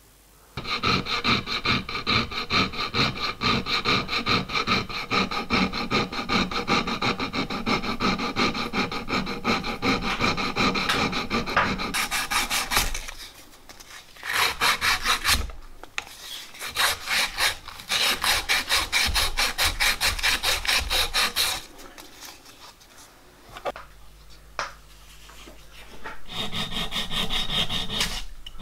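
Hand filing on a metal locomotive drive crank held in a bench vise: long runs of rapid back-and-forth rasping strokes, with short pauses. Near the end there is a steadier rubbing as an abrasive cloth strip is drawn back and forth round the crank's boss to smooth it.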